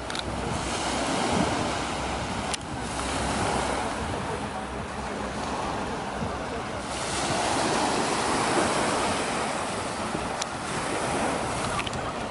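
Small waves breaking and washing up a pebbly shoreline, swelling and easing every few seconds, with wind on the microphone.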